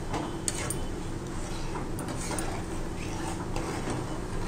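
Metal spatula stirring a watery curry in a frying pan, with several light clinks and scrapes against the pan over a steady low hum.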